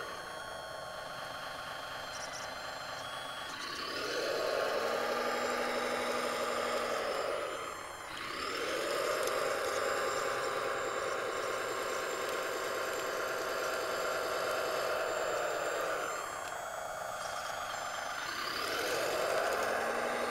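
Radio-controlled CAT 963B track loader model's electric drive motors and gearing whining as it works dirt, in several runs: the pitch rises as each run starts, holds steady, then drops away as it stops.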